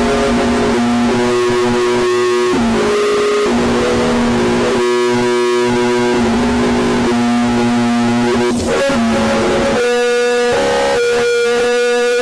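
Loud, distorted music of held guitar-like notes that change pitch every second or two, with short downward slides between some notes.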